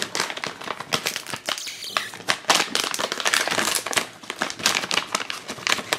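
A shiny foil blind bag being torn open and handled, crinkling irregularly throughout.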